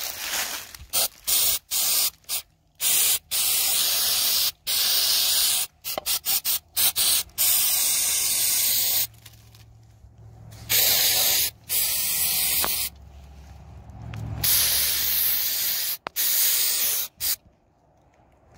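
Aerosol mass airflow sensor cleaner sprayed in repeated bursts into a removed mass airflow sensor. A few short squirts come first, then several longer sprays of a second or two each, and the hiss starts and stops sharply each time.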